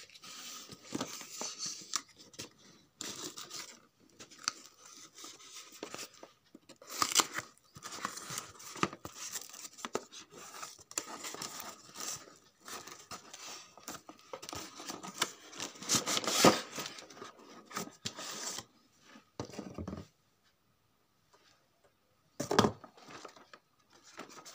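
Cardboard shipping box being cut open with a knife and torn apart: irregular scraping, slicing and tearing of cardboard that stops after about 18 seconds. A single sharp knock follows a few seconds later.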